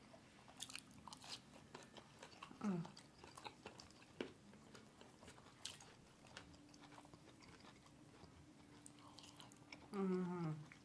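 Close-miked chewing and eating: food being bitten and chewed, with small clicks of plastic forks on takeout containers. A short hummed 'mm' near the end.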